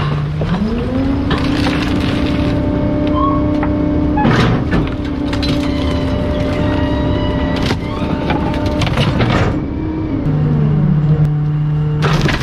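Bulk-waste truck's engine revving up about half a second in to drive the hydraulic compactor, holding at high speed and dropping back to idle near the end. Cracks and crunches of bulky waste being crushed in the hopper come over it, several in a cluster in the second half.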